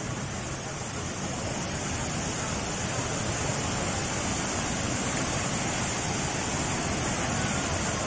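Lembah Anai waterfall in flood: a steady rushing of heavy falling water, with floodwater running over the road, growing a little louder.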